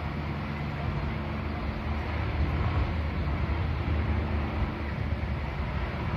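Steady low rumble of street ambience, with wind buffeting the microphone.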